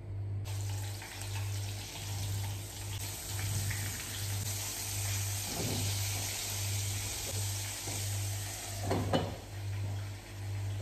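Flour-dredged chicken pieces frying in hot oil in a pan: a steady sizzle that starts about half a second in as the pieces go in, with light clatters near the middle and again about nine seconds in. A low hum pulses on and off about twice a second underneath.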